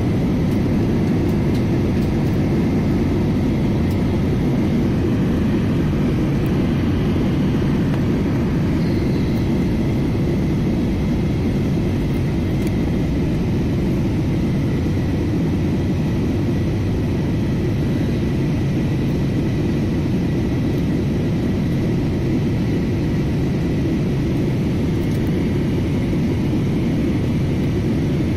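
Steady cabin noise inside a jet airliner in the climb: engine and airflow rumble heaviest in the low end, with a faint steady whine above it.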